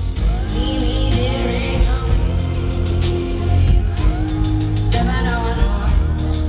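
Live pop concert music: a female lead vocal sung into a microphone over a band with heavy, steady bass, heard from the audience.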